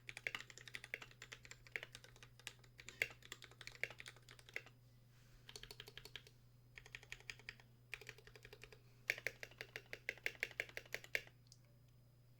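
Typing on an Idobao ID80 mechanical keyboard with Akko Pink v1 switches lubed with Super Lube 41160 and NK_ x Tai-Hao Cubic keycaps: quick runs of keystrokes broken by short pauses, stopping near the end.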